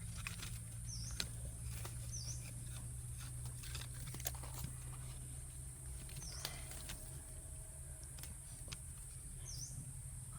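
Forest ambience: a bird gives a short, high chirp four times, over a steady high-pitched whine and a low hum, with scattered faint clicks.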